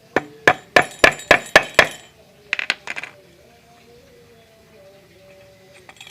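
Hammer blows on a small stainless-steel propeller piece: about seven sharp metallic taps at roughly four a second, then a quick cluster of three or four more about half a second later.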